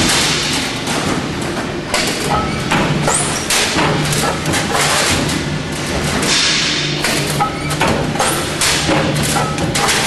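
Hydraulic punching press on a cable tray roll forming machine working, making a rapid, uneven series of thumps and knocks, several a second, over a steady low hum.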